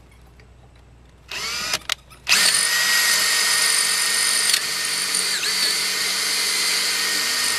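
Power drill with a drill bit boring out the hole left by a broken brake bolt to tap size. It gives a short spin-up about a second in, then runs steadily for about five seconds as it cuts.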